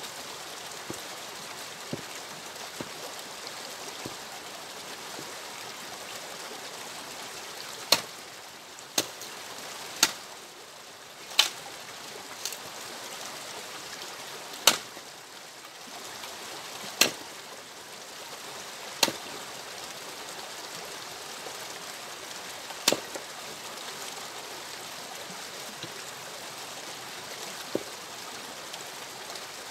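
Axe splitting firewood logs on a chopping block: about ten sharp woody cracks, spaced irregularly a second or several seconds apart, with a few fainter knocks in the first few seconds.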